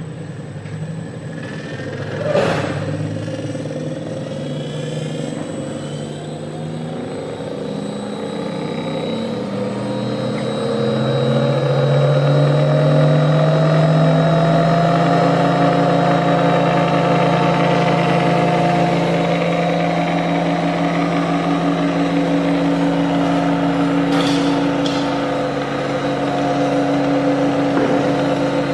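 Ross HSM-400DL inline high shear mixer's 1 HP electric motor running on a variable frequency drive, its hum rising in pitch and getting louder as the speed is brought up over several seconds, then holding steady. A sharp click about two seconds in.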